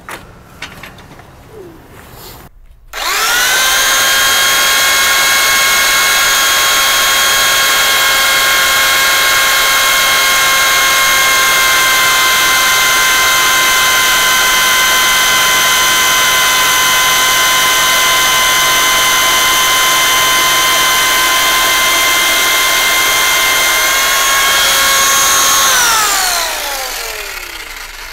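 Parkside PSTK 800 C3 800 W jigsaw starting about three seconds in and running at steady speed, its motor whining steadily as a fast wood blade cuts through 18 mm chipboard. Near the end the pitch rises briefly, then the saw is switched off and winds down.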